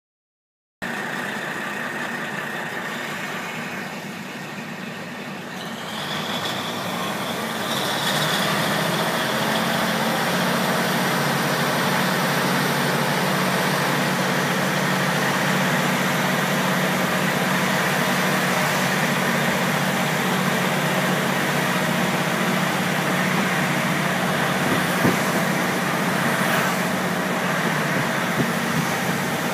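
KiHa 48 diesel railcar's engine running under power, heard inside the car as the train pulls away; the note rises after a few seconds and then holds as a steady drone, with a few sharp clicks near the end.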